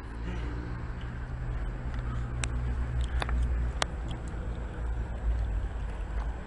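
Steady low outdoor rumble on the camera's microphone, with a few short sharp clicks about two and a half, three and four seconds in.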